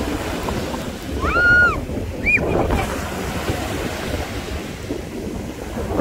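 Sea waves breaking and washing up on a sandy beach, with wind buffeting the microphone. About a second and a half in, a short, high-pitched call rises and falls, followed by a shorter one just after.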